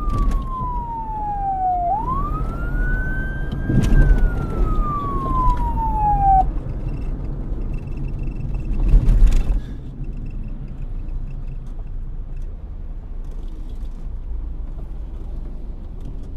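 Police car siren wailing: the pitch falls, rises and falls slowly once more, then cuts off about six seconds in. A low road rumble follows, with a louder whoosh of a passing vehicle about nine seconds in.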